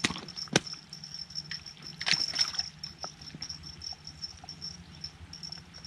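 Water splashing and sloshing as a freshly caught bream is handled at the river's edge: a few short splashes, the busiest stretch about two seconds in.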